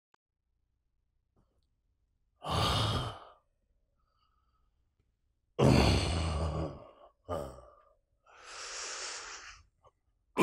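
A man's heavy, breathy sighs: about four long exhalations, each about a second, with a few seconds between, the second one the loudest with a little voice in it.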